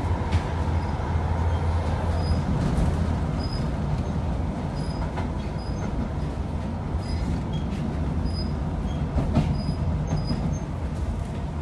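Tyne and Wear Metrocar running along the track, heard from inside the carriage: a steady rumble with a low hum, and a sharp knock about half a second in and again later on.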